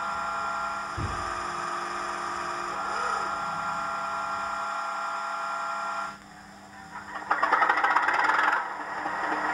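Sound decoder in an OO gauge DRS Class 37 model diesel locomotive playing its start-up sequence through the model's small speaker. A steady whine with a thump about a second in cuts off about six seconds in, then a rapid rattle as the English Electric engine turns over and fires, settling into a steady idle near the end.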